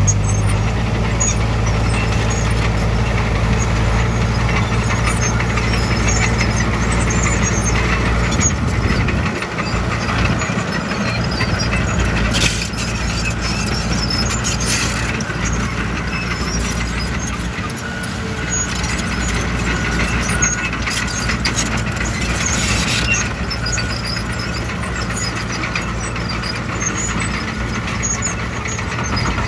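Heavy construction machine's diesel engine running steadily, with squeaks and small metallic clicks over it. The deep low hum drops away about eight seconds in.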